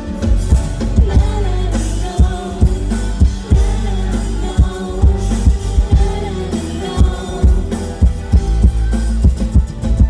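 Live pop-rock band playing through a PA system: a steady drum-kit beat over bass and electric guitar, with a voice singing the melody.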